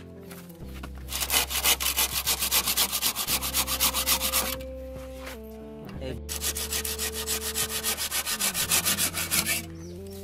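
Hand saw cutting through a green bamboo pole in rapid back-and-forth strokes, in two runs with a short pause between, until the pole is cut through. Soft background music plays underneath.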